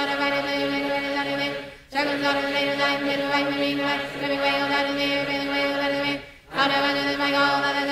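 A group of voices reciting a decree in rapid unison, a near-monotone rhythmic chant, with two short pauses for breath about two seconds and six seconds in.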